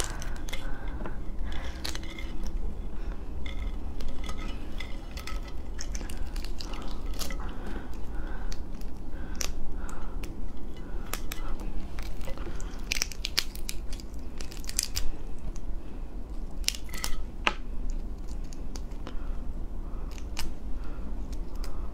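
Hands pulling apart a large soy-marinated crab: the shell and legs crack and snap in scattered sharp clicks, with a denser run of cracks about 13 to 15 seconds in.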